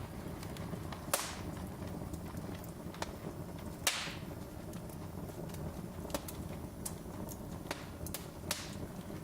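Wood fire crackling in a fireplace: a steady low hiss of burning with scattered small clicks and three louder pops, about a second in, near the middle, and near the end.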